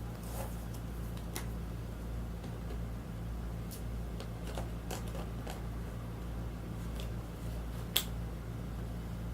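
Scattered light clicks and taps of small objects being handled, with one sharp click about eight seconds in, over a steady low hum.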